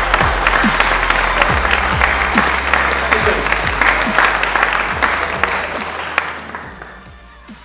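Audience applauding, dying away near the end, over background music with a steady beat.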